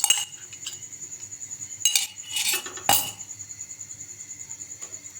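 Metal spoon clinking and scraping against a pan while stirring ginger paste as it dry-roasts, with sharper knocks at the start and about two and three seconds in. A faint, high-pitched pulsing tone runs underneath.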